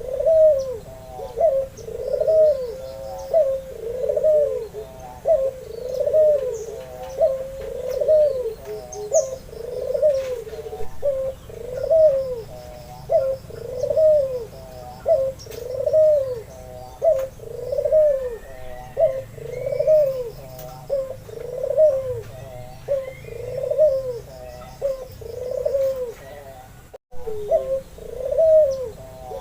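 White albino ringneck dove (puter) cooing over and over in a steady rhythm, about one coo a second. The run breaks off briefly near the end, then resumes.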